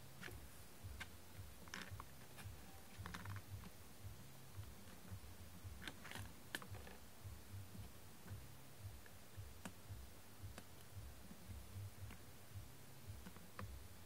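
Faint, scattered light clicks and taps a second or more apart, from small nail-art handling: a wooden orange stick and a clear plastic case of nail sticker dots. A low hum runs underneath.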